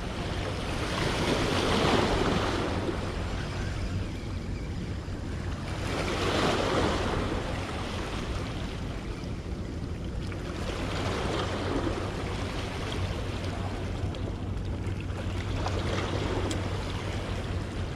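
Small waves washing against the shore in slow swells about every four to five seconds, over a low steady hum.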